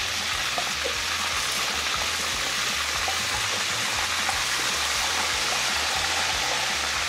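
Chicken pieces deep-frying in hot oil in steel pans: a steady, dense sizzle. Some of the pieces are freshly coated in flour and have just been dropped in.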